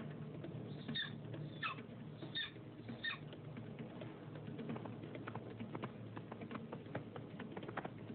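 Four short, high cries, each falling in pitch, spaced about two-thirds of a second apart in the first half, over the crackle and low hum of an old film soundtrack.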